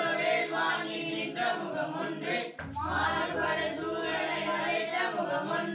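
A group of voices singing a Tamil devotional song together, unaccompanied, with a brief break about two and a half seconds in.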